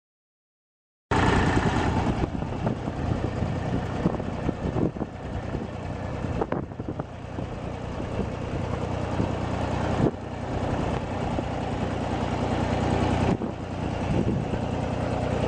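Ford 1710 compact tractor's three-cylinder diesel engine running steadily, with a couple of brief knocks.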